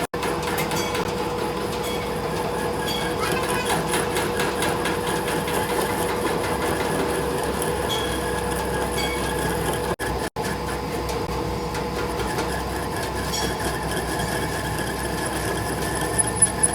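Workshop machine running steadily, a constant hum with a fast rhythmic clatter, cutting out briefly about ten seconds in.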